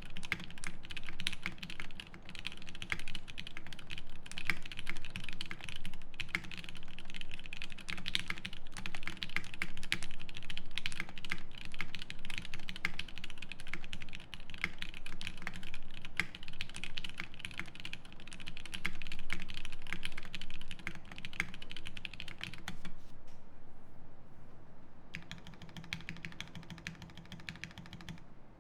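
Fast, continuous typing on a Swift65 prototype mechanical keyboard with lubed Lavender linear switches in an aluminium plate and GMK keycaps, giving a steady patter of keystrokes. Typing stops briefly near the end, then quieter keystrokes follow.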